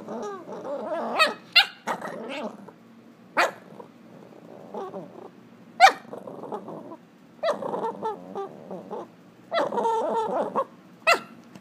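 Three-month-old Boston Terrier puppy growling and barking: stretches of growling broken by about five short, sharp barks, the loudest about halfway through.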